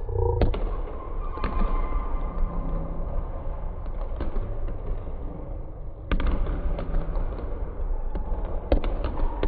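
Basketballs bouncing on a hardwood gym floor: a few sharp thuds, about half a second in, a cluster about six seconds in and another near the end, over a steady low rumble.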